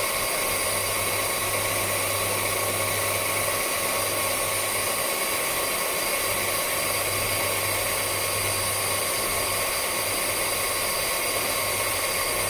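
Wadfow 920 W belt sander (76 × 533 mm belt) running with no load at a constant speed, a steady motor whine.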